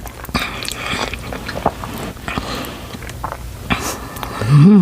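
Close-miked chewing of a big mouthful of cheesy Buldak ramen noodles, wet and squishy with small clicks. Near the end comes a short, loud vocal sound that rises and falls in pitch.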